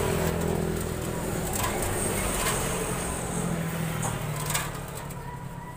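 A motorcycle carburettor being scrubbed with a paintbrush in a steel bowl of cleaning fluid, with a few sharp clicks of metal against the bowl, over a steady low engine hum.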